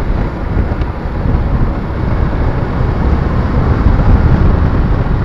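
Wind buffeting the microphone of a moving motorcycle, a loud, steady rumble mixed with engine and road noise that grows slightly louder.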